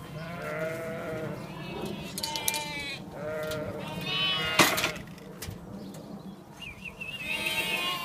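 Sheep and lambs bleating again and again, several calls overlapping, some high and quavering. There is a single sharp knock about four and a half seconds in.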